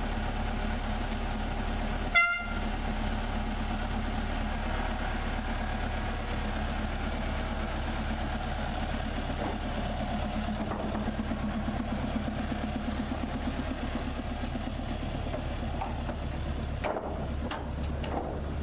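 Small narrow-gauge diesel locomotive's engine running steadily, with one short horn toot about two seconds in.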